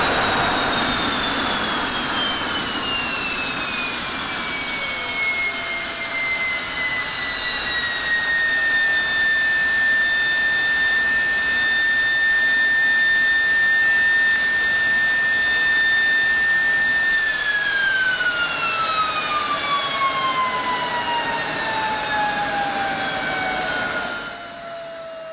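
General Electric F110-GE-100 turbofan on a test stand, throttled back after a full-afterburner run: the roar dies away and the turbine whine falls and settles at a steady pitch. Just past the middle the whine falls again as the engine spools down, and the sound fades near the end.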